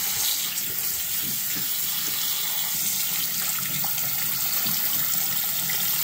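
Bathroom sink tap running steadily, the stream splashing onto a hand and the small black rubber seal from a toilet fill valve being rinsed under it.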